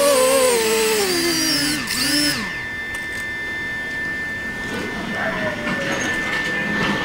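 Wingsland S6 pocket drone's propeller motors winding down in the hand, a whine falling in pitch that stops about two seconds in as the drone lands. A steady high thin tone carries on after it.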